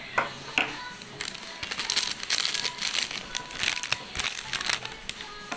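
A metal spoon clinks twice against a ceramic mug, then a long stretch of crackly crinkling and rustling, over background music.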